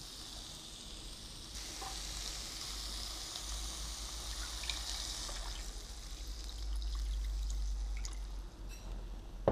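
Water poured from a mug into a frying pan of cooking chicken and masala: a steady pouring splash that starts about a second and a half in, grows louder, and tails off near the end.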